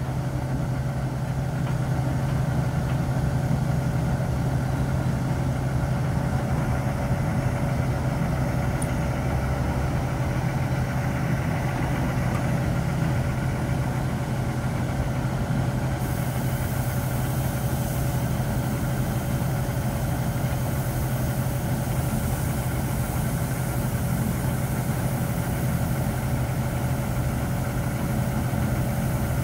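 Steady low machinery drone at a hydraulic truck dumper holding a loaded semi tipped nose-up, with a constant higher hum on top.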